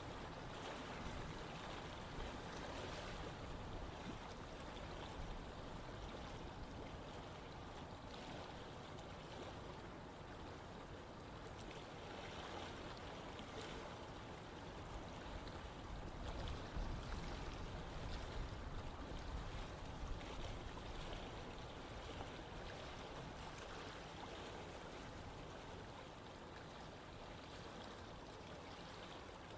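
Steady running water: a constant rushing flow that swells slightly louder about halfway through.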